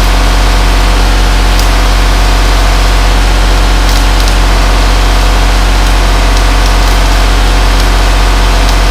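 Arc welding on a cracked bulldozer frame: the welding machine hums loudly and steadily, with a few faint ticks scattered through.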